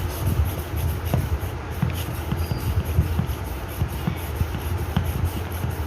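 Hand air pump being stroked to inflate a rubber-moulded football through an inflating needle: repeated short strokes, about two to three a second, over a steady low hum.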